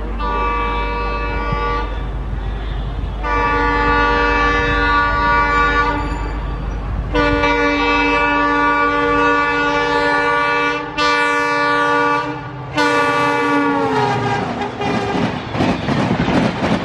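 WDP4 diesel locomotive's multi-note air horn sounding in five long blasts as the train approaches at speed, the last one dropping in pitch as the locomotive passes. The clatter of the Shatabdi's coaches rushing past over the rail joints follows.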